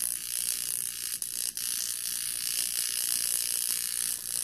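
Ozone microcurrent facial wand buzzing with a steady high-pitched hiss as it is worked over the skin of the face, dropping out briefly twice a little over a second in.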